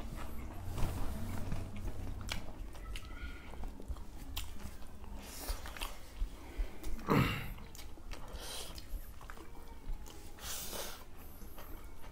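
Close-up chewing and mouth noises of people eating rice with their hands, with scattered soft clicks and a few short louder bursts.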